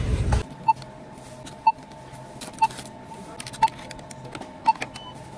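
Self-checkout register giving a short electronic beep about once a second, evenly spaced, over a faint steady hum.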